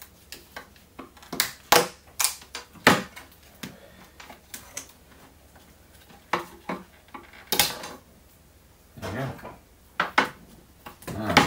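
Irregular sharp clicks, taps and scrapes of a metal screwdriver and other hand tools against the plastic base of an opened Withings Body Cardio bathroom scale, as a hot-glued battery is pried loose.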